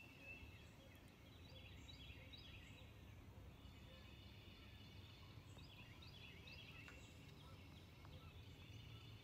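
Faint birdsong, with many short high chirps and quick falling notes from several birds overlapping, over a low steady rumble.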